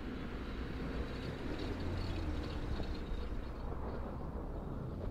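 Camouflaged BMW 7 Series prototype driving on packed snow: its engine runs steadily, with a low note that shifts slightly, over the hiss of the tyres on the snow.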